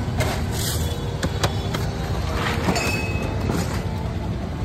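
Steady street noise with a continuous low rumble of road traffic and a few faint clicks.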